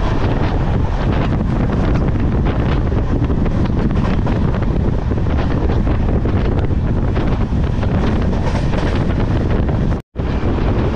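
Loud wind buffeting the microphone over the steady running noise of a moving express train, with a brief dropout about ten seconds in.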